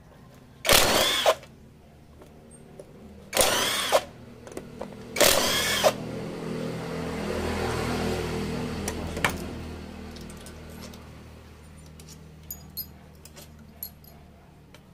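Cordless drill spinning crankcase bolts out of a Honda Supra Fit engine in three short bursts. A low hum then swells and fades, and light metallic clicks follow near the end as the loose bolts are handled.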